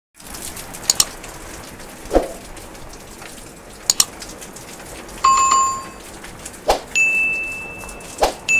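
Subscribe-animation sound effects: a double mouse click about a second in and again about four seconds in, a short bell ding, then a higher, longer bell tone near the end. Soft pops fall between them.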